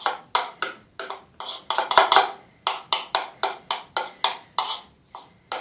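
A spoon stirring a thick soap slime mixture in a bowl: quick, regular strokes, about three a second.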